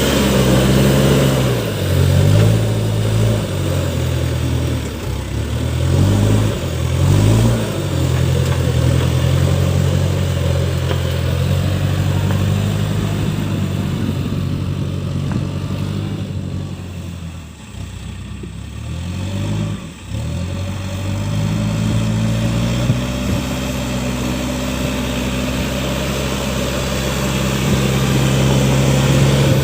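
Case backhoe loader's diesel engine working, revving up and down repeatedly as the machine is worked. It drops lower for a few seconds a little past the middle, then rises back to a steady, higher run.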